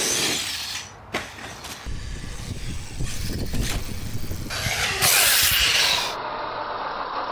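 Electric RC car driving outdoors in a string of short clips: motor whir and tyre and gravel noise with wind on the microphone, and a sharp knock about a second in.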